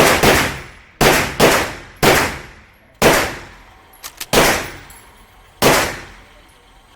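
Gunshots, about seven of them at irregular intervals roughly a second apart, each a sharp crack with a fading echo tail.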